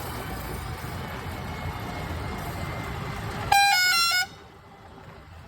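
A combine harvester on the move runs with a steady rumble. About three and a half seconds in, a vehicle horn gives a short toot of a few quick stepped notes, and then the rumble drops off sharply.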